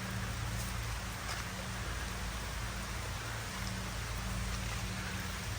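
Heavy rain falling steadily, an even hiss with a low steady hum beneath it.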